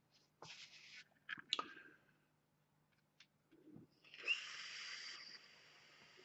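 Breathy exhale of vapour, then a few small clicks and sniffs. About four seconds in, a draw on a Proto RTA rebuildable tank atomizer with its airflow partly opened: a steady airy hiss with a thin whistle in it, lasting about two seconds.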